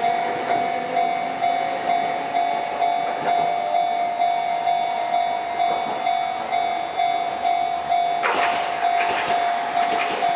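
Railway crossing warning bell ringing steadily, about two strikes a second, the signal that a tram is approaching. From about eight seconds in, sharp rattling clicks of the approaching tram on the rails join it.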